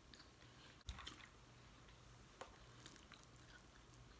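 Faint close-up chewing of king crab meat, with a few soft mouth clicks, the clearest about a second in.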